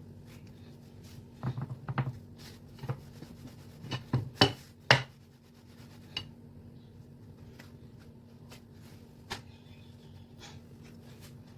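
Food-prep handling noises: a cluster of knocks, taps and rubbing that is loudest about four to five seconds in, then a few scattered taps, over a faint steady hum.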